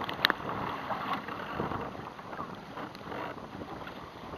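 Wind buffeting the microphone while choppy waves slap and splash against a sea kayak's hull, with a sharp splash just after the start.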